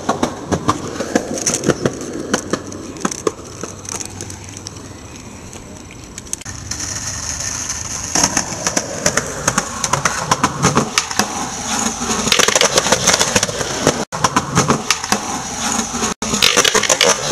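Handling noise of a camera rubbing and knocking against hair and skin, with many clicks. About six seconds in, a steady rushing noise with frequent clacks takes over.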